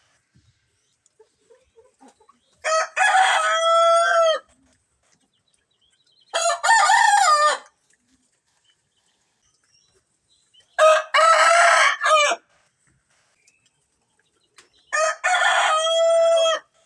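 Rooster crowing four times, each a cock-a-doodle-doo of about one and a half to two seconds, roughly four seconds apart, with near silence between crows.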